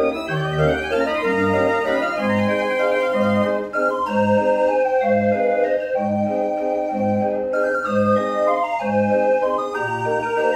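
Dutch street organ playing a lively tune. A steady oom-pah bass alternates between a low and a higher note about twice a second, under quick runs of melody notes that sweep up near the start and down again about four and eight seconds in.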